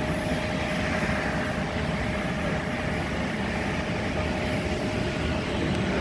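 Airliner jet engines running with a steady rushing drone and a faint whine that fades about a second in.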